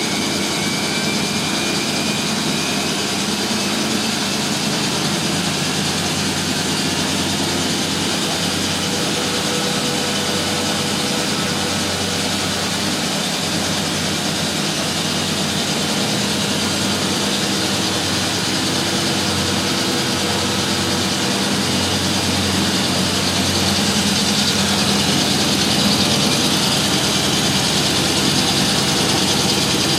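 Three washing machines (Miele, Euronova and Sparmeister) spinning at once: a dense, steady whirring drone with a low hum that gets a little louder about 23 seconds in. About a second in there is a brief thin high squeal, the kind the Sparmeister's slipping drive belt makes.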